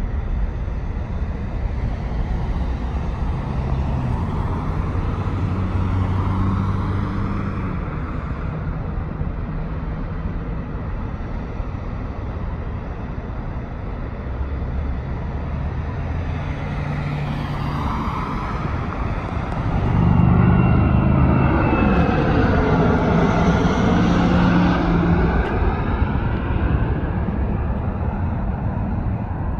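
Steady low rumble, then about two-thirds through the engine noise of an Embraer ERJ-135 regional jet's twin rear-mounted turbofans swells suddenly as it passes close by on approach, with a sweeping phasing sound as it goes over.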